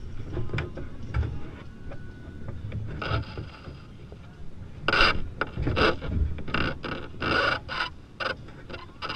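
Handling noise on a GoPro camera: rubbing and scraping with scattered knocks, and a run of louder rough scrapes about halfway through.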